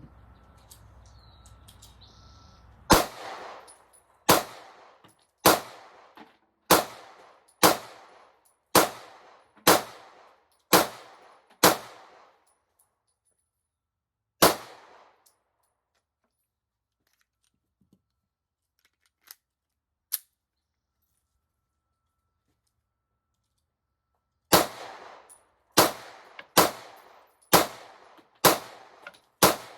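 Ruger Max-9 9mm pistol firing at a steady pace: about ten shots roughly a second apart, a pause with two small clicks, then another string of six shots in quick succession.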